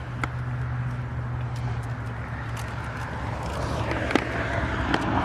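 Steady low hum with a few sharp clicks, about a second apart near the end, as spark plug wires are fitted and clipped into place on a car engine.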